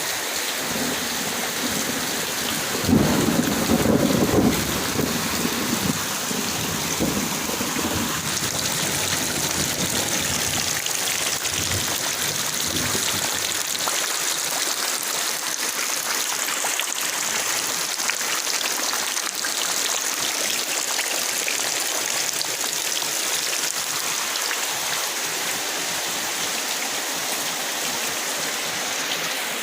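Heavy rain pouring steadily. About three seconds in, a low rumble, likely thunder, swells and fades over the next few seconds.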